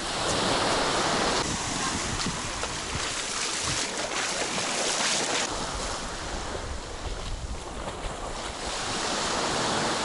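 Small sea waves breaking and washing up a pebble-and-sand beach, a steady surf that swells and eases every few seconds.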